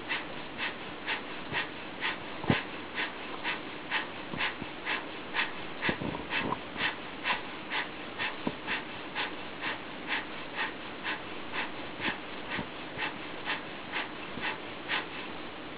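Kapalabhati (breath of fire) breathing: a steady run of short, sharp, forced exhalations through the nose, a little over two a second in an even rhythm.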